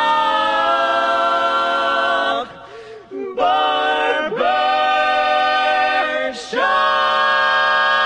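Men's barbershop quartet singing a cappella in close harmony: a long held chord, then a short break about two and a half seconds in, followed by three more sustained chords separated by brief pauses, the last held through the end.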